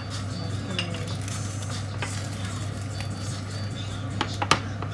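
Metal spoon clinking and scraping against bowls and a glass dish as ladyfingers are soaked and laid in, with a few sharper clinks at about four and a half seconds. A steady low hum runs underneath.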